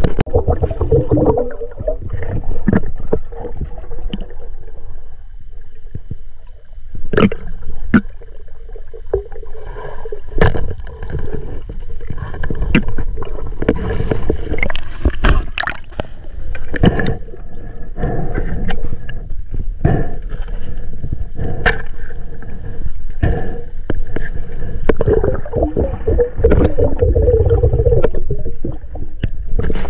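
Water sloshing and gurgling, with many sharp knocks and splashes scattered throughout over a steady low rumble.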